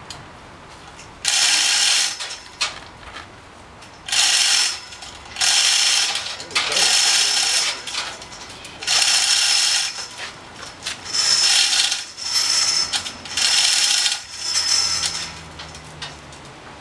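Hand-worked ratcheting lifting gear clicking in repeated bursts while the table saw hangs from it. There are about eight strokes, each about a second long, roughly a second and a half apart.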